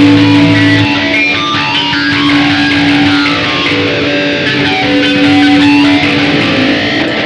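Electric cigar box guitar played through an amplifier: one note rings on steadily as a drone while other notes change above it.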